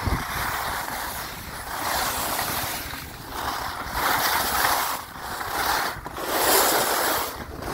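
Skis hissing and scraping over packed snow on a downhill run, swelling in surges every second or so as the skier turns, mixed with wind noise on the microphone.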